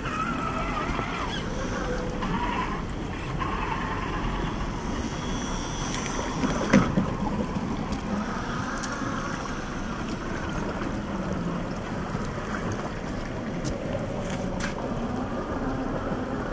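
A Traxxas TRX-6 6x6 RC crawler's electric drive whining as it wades through a shallow rocky stream, over steady rushing and splashing water. A sharp knock a little under seven seconds in.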